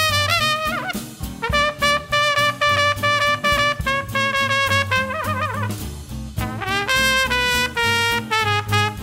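Big-band swing playing an instrumental passage: a horn line of long held notes, some with bends, over a steady bass line and even drum strokes.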